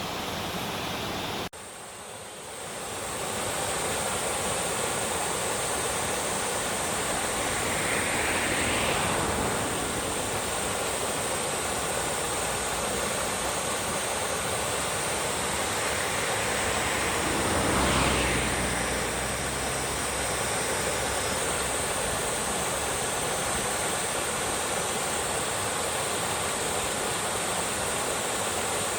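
Mountain valley stream running, a steady wash of water noise. It drops suddenly about a second and a half in, then builds back, and swells briefly twice.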